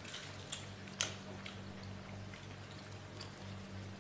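Fingers mixing cooked rice on a banana leaf: faint soft ticks and rustles, with two sharper clicks about half a second and a second in, over a steady low hum.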